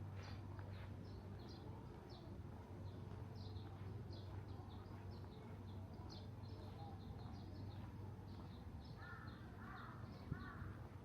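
Small birds chirping in short, high, repeated notes, two or three a second, with a few lower, harsher calls near the end, over a steady low hum.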